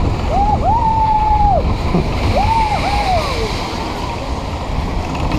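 Wind buffeting the microphone and the steady rumble of a Steeplechase horse car running along its steel track. Two long, drawn-out shouts from riders rise and fall in the first half.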